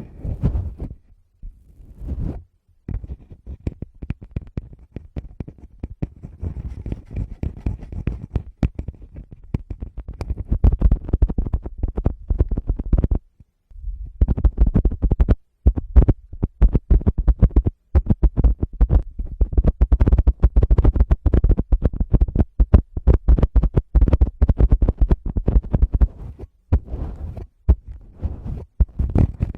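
Fingertips tapping and rubbing directly on a Tascam microphone: rapid, dense taps and scratchy rubs with heavy low thuds, broken by a few short pauses.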